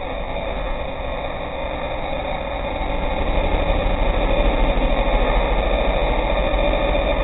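Side-by-side UTV engine running as the vehicle drives over desert sand, a steady mechanical din with a low rumble that gets a little louder about three seconds in.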